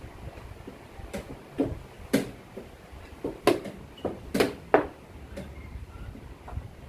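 Wooden chess pieces being set down hard on the board and the buttons of a digital chess clock being slapped in fast blitz play: about ten sharp knocks and clicks, some coming in quick pairs.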